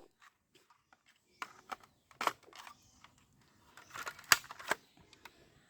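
Scattered plastic clicks and knocks of a toy rifle being handled, about half a dozen spread out, the sharpest a little past two seconds and around four seconds in.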